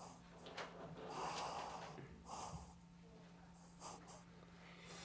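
A person's quiet breathing: a few short, hissing puffs of breath through the nose, over a steady low hum.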